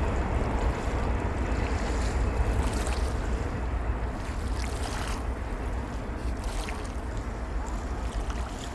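Fireworks rumbling overhead, with scattered short crackles about two, three, five and six and a half seconds in; the rumble slowly dies down.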